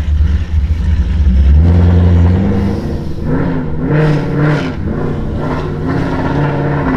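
Ford Mustang 5.0 V8 with a ghost cam tune, breathing through long-tube headers, an X-pipe and Roush axle-back mufflers, accelerating from a stop. A heavy low rumble gives way about two seconds in to an engine note that rises and falls in pitch, with louder surges in the middle.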